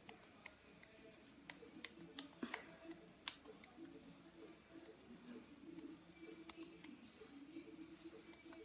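Near silence with faint, scattered light clicks and taps of fingertips massaging cream over the face, two of them louder between two and four seconds in.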